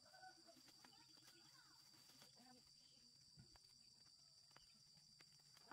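Near silence: faint background with a steady high-pitched whine, and a few faint, indistinct pitched sounds in the first couple of seconds.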